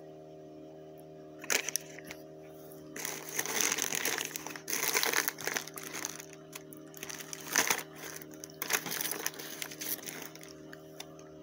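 Plastic packaging crinkling and rustling, with a few sharp clicks, as small electronic parts are rummaged through and handled, over a steady low background tone.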